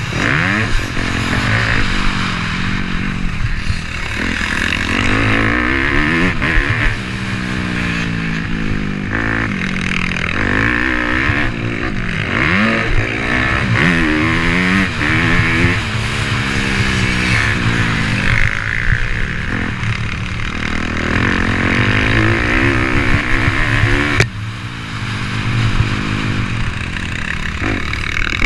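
Motocross bike engines revving, rising and falling in pitch again and again as the throttle opens and closes.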